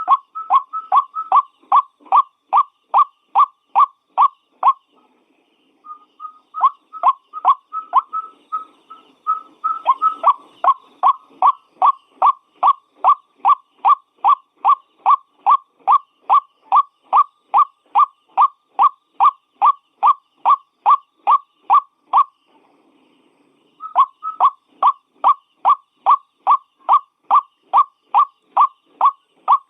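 White-breasted waterhen calling: a monotonous run of short, slightly falling notes, a little over two a second, in three bouts with brief breaks about five seconds in and about twenty-two seconds in.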